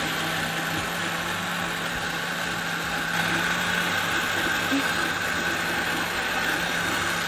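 Small electric kitchen appliance motor running steadily, a constant whirring hum.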